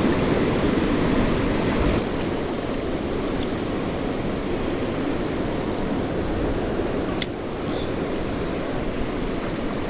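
Steady rushing of river water below a dam, a constant noisy wash with no pauses. A single sharp click sounds about seven seconds in.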